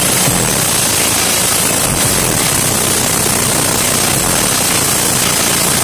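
Re Audio SX15 V2 car subwoofer playing bass so loud that the recording is a steady, heavily distorted rumble, with a few deeper bass pulses about two seconds apart. The air pushed by the subwoofer is strong enough to blow hair about.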